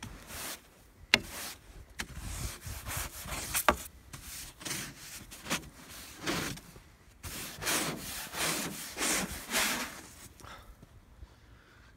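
Snow being swept off a car's hood and windshield in a series of rough brushing strokes, about one a second, with a couple of sharp knocks along the way. The strokes stop shortly before the end.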